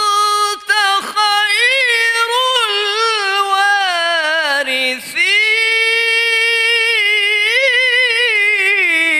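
A man reciting the Quran in the melodic tajweed style into a microphone: long, ornamented phrases held at a high pitch with wavering turns. Two short breaks for breath, one about a second in and one about five seconds in.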